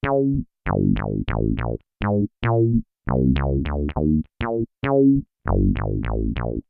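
Electric bass played through an MXR MB301 Bass Synth pedal: a staccato riff of short synth-bass notes, about three a second, with brief silences between them. Each note starts bright and quickly closes down to a darker tone.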